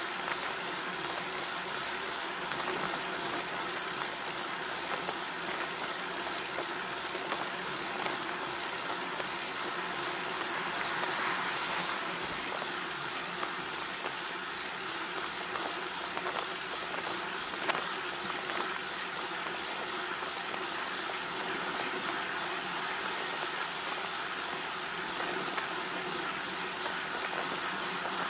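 Steady running noise of a moving road vehicle: an even engine hum under a constant rush of noise, with no change in pace.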